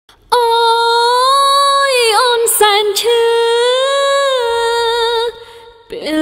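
A woman singing unaccompanied: long held notes that bend up and down in pitch, in two phrases. The voice breaks off about five seconds in and comes back just before the end.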